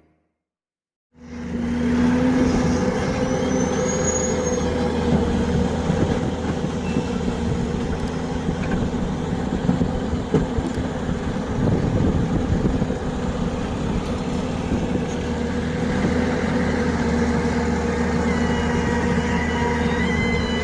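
Excavator's diesel engine running steadily under load, starting abruptly about a second in after a short silence.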